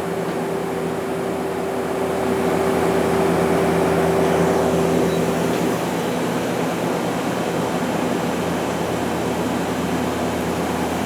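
Okuma LB200MW CNC lathe running with its spindle being jogged slowly on the C-axis: a steady machine hum with a held tone that stops a little over halfway through.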